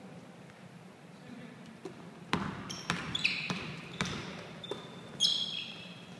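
A basketball being dribbled on a hardwood gym floor, sharp bounces about every half second starting a little over two seconds in, with sneakers squeaking on the floor, the loudest squeak near the end.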